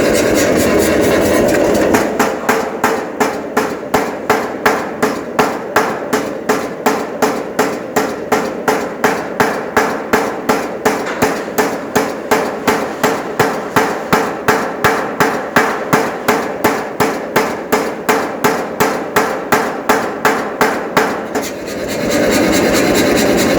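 Air power hammer striking in a steady rhythm, about two blows a second, from about two seconds in until near the end. Before the first blow and after the last, only its motor runs steadily.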